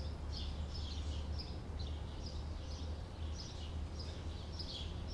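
A bird repeating short high chirps about twice a second, over a steady low rumble of outdoor background noise.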